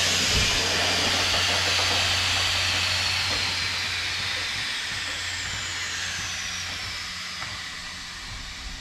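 Growler's air suspension venting air as it lowers to its kneeling height: a loud, steady hiss that slowly fades, with a thin whistle sliding down in pitch.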